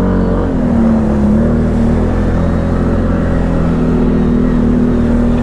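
ATV (quad bike) engine running at steady, moderate revs, close to the microphone. Its pitch dips slightly about a second in, then holds level.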